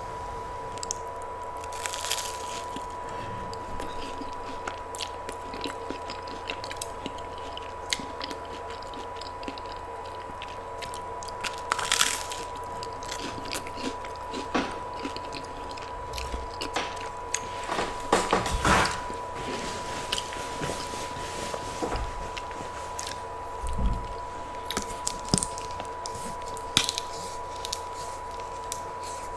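Close-miked eating: a person biting and chewing crunchy food, with scattered crisp crunches and mouth clicks, the loudest bursts about twelve seconds in and again around eighteen to nineteen seconds.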